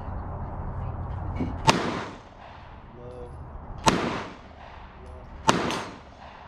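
Three shots from a concealed-carry pistol, the second about two seconds after the first and the third about a second and a half after that. Each sharp crack is followed by a short echo.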